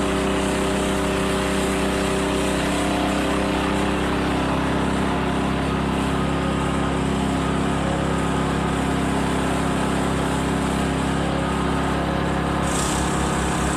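Engine of a well-drilling rig running steadily at constant speed while the borehole is driven, with a change in its sound near the end.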